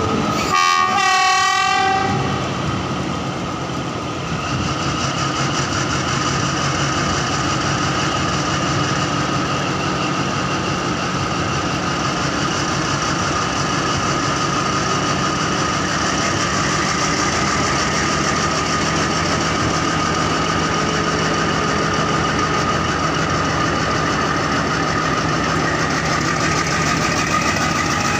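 A locomotive horn sounds once, wavering, for about a second and a half. The Caterpillar diesel engine of an SRT Alsthom locomotive then runs steadily, with a constant high whine over its low hum.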